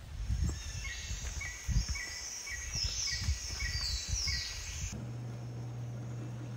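Forest birds singing: one repeats a short note about twice a second while others give higher, falling whistles, over an uneven low rumble. About five seconds in the birdsong cuts off, and a steady low hum follows.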